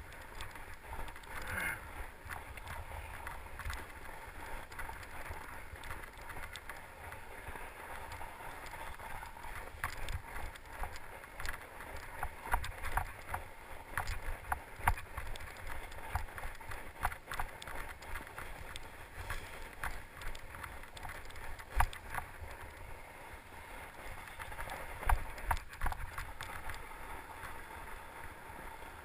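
Fat-tyre mountain bike riding over snow: a steady crunch and rumble of the tyres, with frequent clicks and rattles from the bike and a few harder knocks as it goes over bumps.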